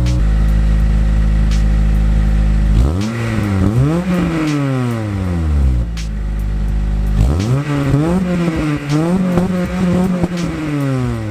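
Acura RSX four-cylinder engine breathing through a Yonaka catback exhaust and test pipe. It idles steadily, then is revved twice, each rev climbing and falling back to idle. An exhaust leak at the joint where the muffler meets the other pipes was found during this test.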